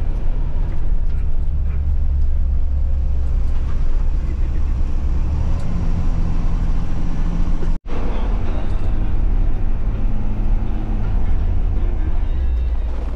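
Bus engine and road noise heard from inside the cabin while driving: a loud, steady low drone whose pitch shifts a few times with engine speed. The sound cuts out for an instant about eight seconds in.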